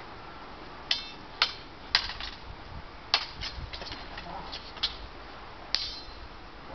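Steel swords clashing in a sparring bout: about ten sharp metallic clanks at an irregular pace, a few of them ringing briefly, with a quick run of lighter clinks in the middle.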